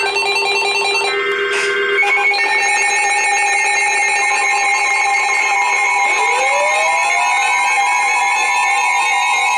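Electronic emergency alert tones: several steady tones sound together, some of them pulsing. About six seconds in, more tones slide upward and settle into a steady chord.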